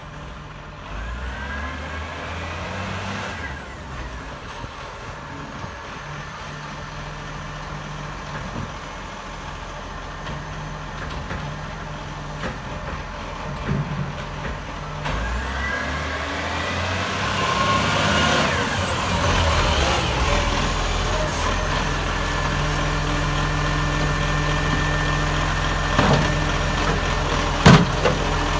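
Dennis side-loading garbage truck's engine running and growing louder as it draws up, with its hydraulic lifting arm whining up and down in pitch as it raises and tips a bin. Two sharp knocks near the end.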